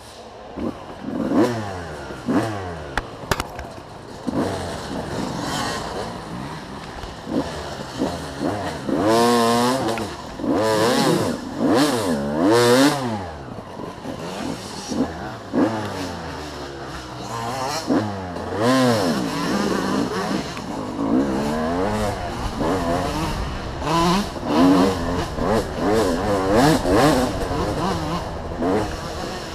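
Dirt bike engines revving, the pitch climbing and dropping again and again, with a few sharp knocks and clatter.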